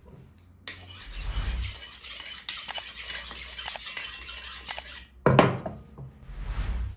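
Steel knife blade drawn along a honing steel: a long metallic scrape with a faint ring, then two shorter swipes near the end.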